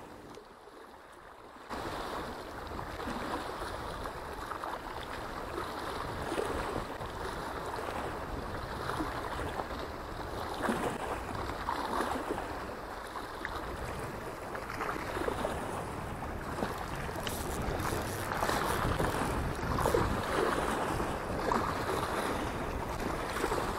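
Choppy reservoir waves splashing against a stone embankment, with wind blowing across the microphone, starting about two seconds in after a brief near-silence.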